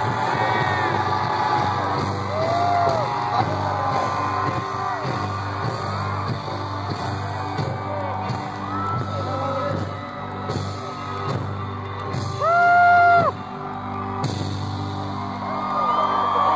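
Live band music played loud through a PA, with crowd voices singing along and whooping. A loud held shout from someone close by stands out for under a second about twelve and a half seconds in.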